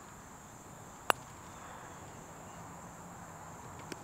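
A single sharp click of a putter striking a golf ball about a second in, over a steady high insect drone.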